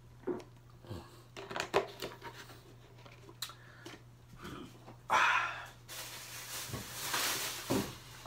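A few knocks and clicks as things are handled in a kitchen, then two short stretches of hissing noise, the first about five seconds in being the loudest, over a low steady hum.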